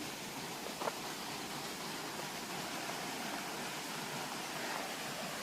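Steady rush of flowing stream water, with a short knock about a second in.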